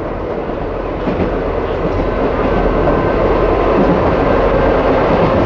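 Izuhakone Railway 1100 series (ex-Seibu 701 series) electric train running along the track, heard from inside its front cab: a steady rumble of wheels and running gear. A faint high whine joins about halfway through.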